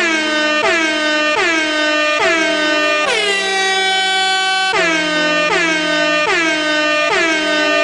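Air horn sound effect blasting over and over, roughly every three-quarters of a second, each blast sliding down in pitch at its start and then holding. One blast about three seconds in is held longer than the rest.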